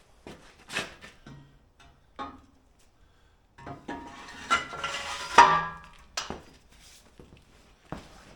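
Steel parts and tools clinking and knocking, with a longer ringing metallic clatter from about three and a half to six seconds in.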